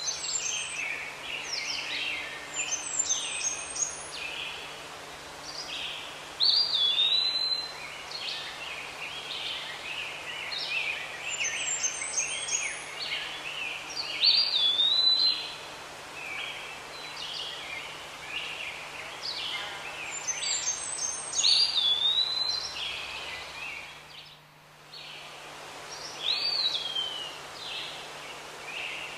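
Several birds singing and chirping: one phrase that slides up into a high whistle recurs every few seconds, amid many shorter chirps. A faint steady low hum runs underneath, and the sound briefly drops away about three-quarters of the way through.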